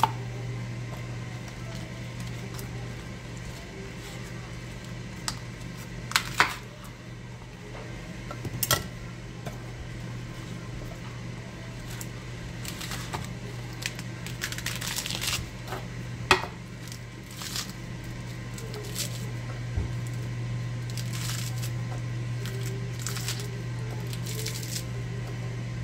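Romaine lettuce being cut with a chef's knife on a plastic cutting board, then torn by hand into a bowl: scattered knife knocks on the board and the crisp snap and crunch of the leaves being ripped. A steady low hum sits underneath throughout.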